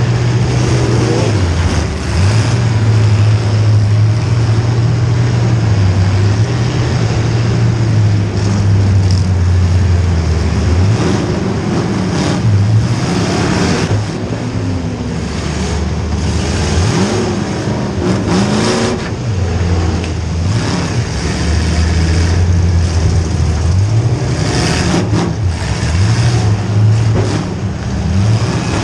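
Demolition derby car's small-block Chevy V8 revving up and down hard as it drives, with several sharp bangs from hits along the way.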